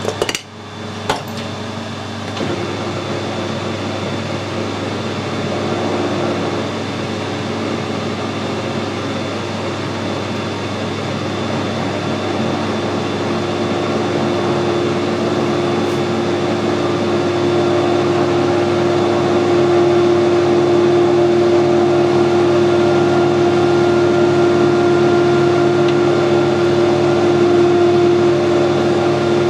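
Metal lathe running slowly while a clamp-type knurling tool rolls a knurl onto a small turned bush. It is a steady mechanical hum with a tone that sets in a couple of seconds in, and it grows gradually louder. A couple of clicks come in the first second.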